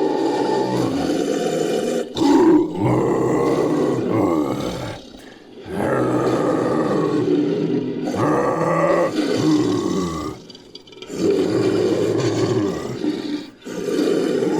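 Made-up creature roars: a string of long, wavering, pitched roars and growls, layered from big cat roar recordings and a human voice, with short breaks between calls.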